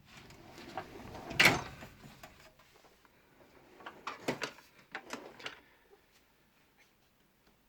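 Metal drawer of a Halfords Professional tool chest sliding on its runners and bumping to a stop about one and a half seconds in. A few lighter clicks and knocks follow as the drawers are handled.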